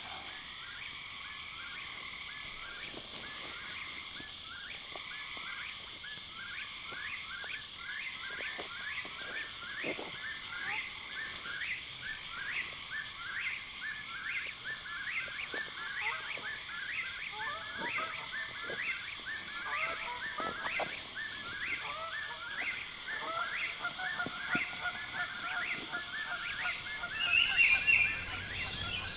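Lakeside night chorus: steady high insect trilling with a fast run of short repeated chirping calls beneath it. From about two-thirds in, louder honking calls join and peak near the end.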